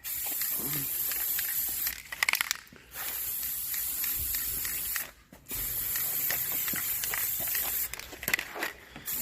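Aerosol can of black spray paint spraying a steady hiss in three long bursts of roughly two seconds each, separated by short breaks with a few clicks.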